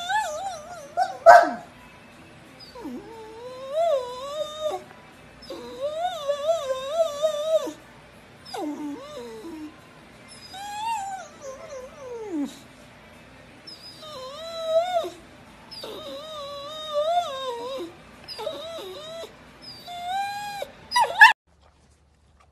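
Boxer dog howling: a string of long, wavering calls, each one to two seconds, sliding up and down in pitch with short gaps between them, cut off abruptly near the end.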